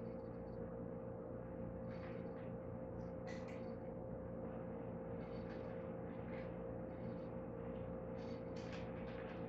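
A steady electrical hum holding one constant tone, with faint, light taps and rustles scattered through it.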